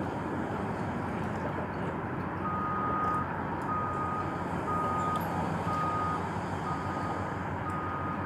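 A vehicle's reversing alarm beeping, one steady high beep about once a second, six times from about two and a half seconds in, over a steady noisy background.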